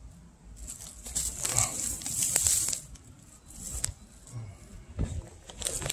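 Dry beach grass and leaves rustling and crackling as a cloth shirt is dragged out through the vegetation, with a few sharp snaps in the second half.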